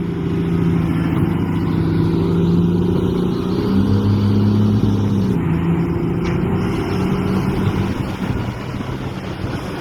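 A heavy machine's engine running steadily, its pitch stepping up a little about three and a half seconds in and dropping back around five seconds in.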